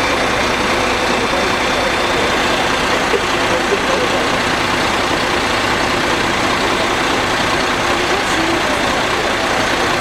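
Aerial ladder fire truck's engine running steadily to drive the ladder as the basket is moved up to a window.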